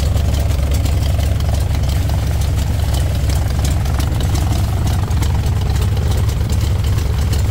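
Republic Seabee amphibian's pusher engine and propeller running steadily at low power, heard from inside the cabin while the hull moves through the water.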